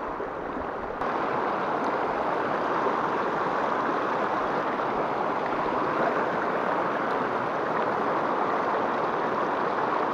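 River rapids rushing over rocks, a steady noise that gets louder about a second in.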